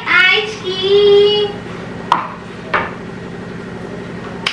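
A voice singing a couple of drawn-out, sing-song notes for about a second and a half, then two light clicks over a steady low hum.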